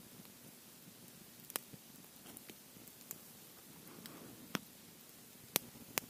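Log campfire burning, with a few sharp, separate crackles and pops over a faint steady hiss; the loudest pop comes near the end.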